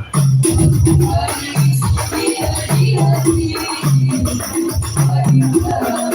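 Rebana frame-drum ensemble playing sholawat music: a repeating rhythm of low, pitched drum strokes with a rattling, jingling percussion layer over it.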